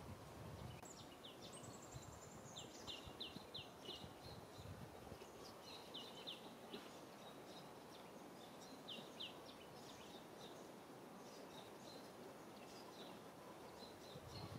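Quiet outdoor ambience with small birds chirping: short high notes, often in quick runs of three or four, scattered throughout over faint background noise.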